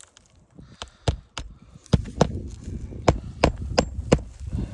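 Flat pry bar being struck to drive it under a roofing nail in asphalt shingles: about eight sharp metal knocks, two early on and then a run of about three a second.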